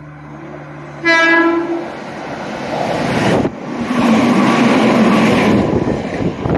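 Meitetsu electric train sounds one short horn blast about a second in, then passes through the station at speed without stopping. Its wheels on the rails make a loud rush that builds as the cars go by.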